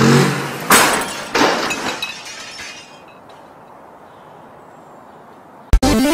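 A motor scooter crashing into a wall and going over: two loud crashes with breaking and shattering of plastic bodywork and lamp parts, then clattering that dies away.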